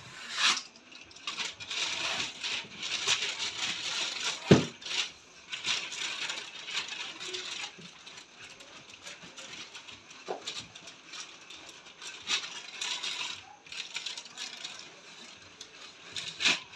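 Cardboard TV box and plastic wrapping being handled during unpacking: irregular crinkling and scraping of plastic sheet against cardboard, with a few sharp knocks, the loudest about four and a half seconds in.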